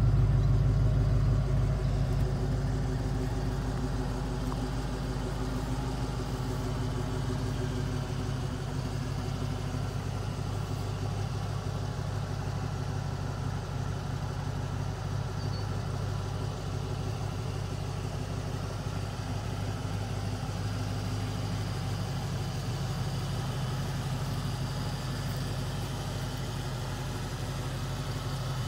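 1988 Ford Mustang GT's 5.0-litre V8 idling steadily, a low even hum. It is louder for the first few seconds, then settles slightly quieter.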